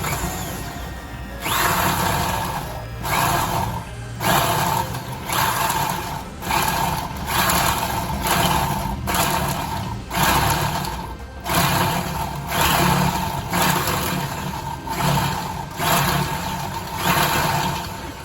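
DeWalt power drill run in repeated short bursts, about one a second, each with a rising motor whine.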